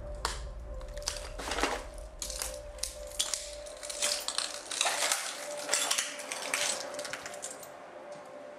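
Footsteps crunching over a floor littered with debris, papers and broken glass, as a series of irregular crunches and crackles that stop about a second before the end.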